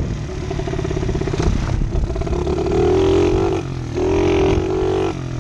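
Pit bike's small single-cylinder engine revving up and down under the rider's throttle, its pitch rising and falling several times with a brief drop off the throttle a little before the four-second mark.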